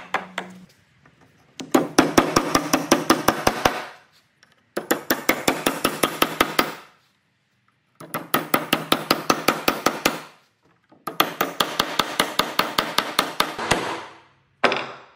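Hammer rapidly striking wooden pegs driven into drawbored mortise-and-tenon joints. The blows come in about five bursts of some two seconds each, roughly six blows a second, with short pauses between.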